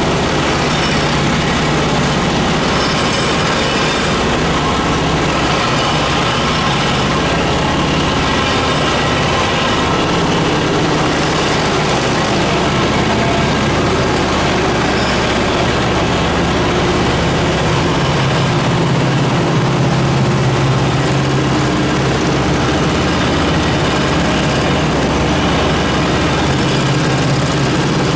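Yuxing YXN 94 3D high-speed computerized multi-needle chain stitch quilting machine running while it stitches a quilt: a steady, loud mechanical running noise over a low hum.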